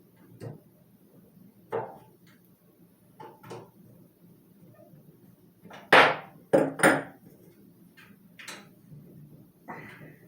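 Scattered knocks and clanks from the box fan's parts being handled while its motor is worked free. The loudest are three close clanks about six to seven seconds in.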